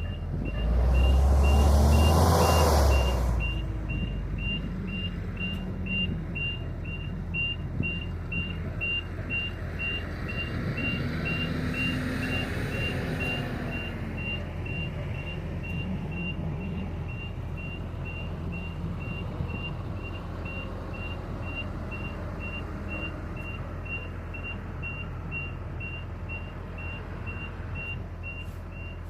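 Wheel loader's engine running, surging loudly in the first three seconds and rising and falling again near the middle, with a reversing alarm beeping at an even pace.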